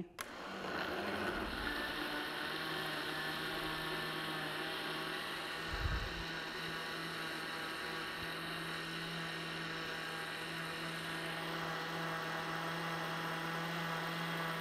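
Hamilton Beach countertop blender switched on and running at a steady pitch, blending frozen berries, greens and liquid into a smoothie. There is a short low thump about six seconds in.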